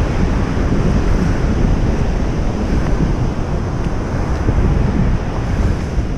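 Wind buffeting the microphone over the steady rush of surf on the beach.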